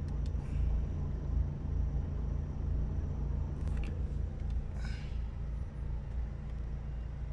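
Steady low rumble of a car's engine and tyres heard from inside the cabin as it drives slowly and pulls up in traffic, with a few faint clicks.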